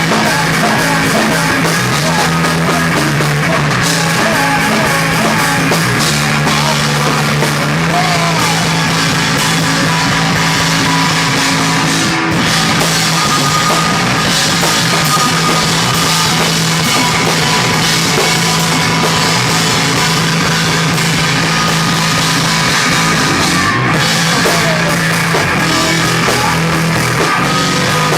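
Punk rock band playing live, loud and unbroken, with a drum kit driving the song over held low bass notes.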